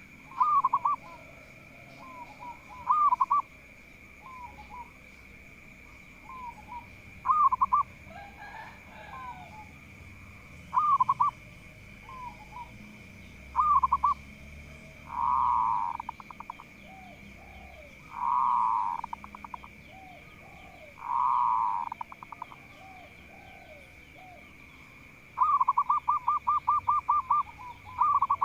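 Zebra dove (perkutut) cooing: short ringing coo phrases repeated every few seconds, three longer rolling phrases midway, and a fast run of about a dozen quick notes near the end.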